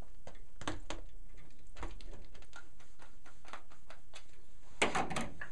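Scattered small clicks and knocks as the fore-end stock and its screw are taken off a Ruger 10/22 Takedown barrel, with a quick cluster of louder clicks near the end.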